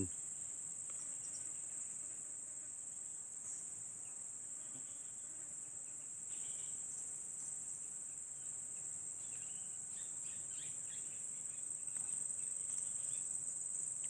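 Steady high-pitched drone of a tropical insect chorus, with a few faint short chirps now and then in the middle and latter part.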